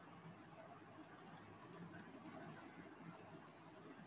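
Near silence with about six faint, sharp clicks at uneven intervals, most of them in the middle and one near the end: the clicks of a pointing device as handwriting strokes are drawn on screen.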